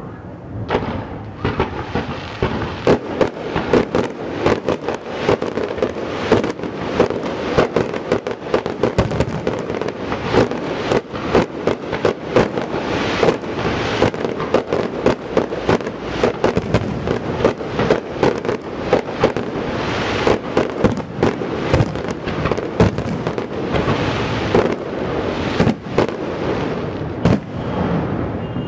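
Fireworks display going off in a dense, continuous barrage of sharp bangs and crackles, starting about a second in.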